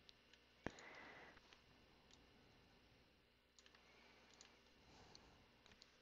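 Near silence, broken by one sharp computer-mouse click under a second in and a few much fainter ticks.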